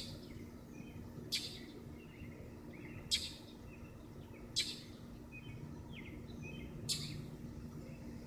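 Blue jay giving harsh scolding jay calls, four short calls a second and a half to two seconds apart, mobbing a cat. Fainter small chirps come between the calls.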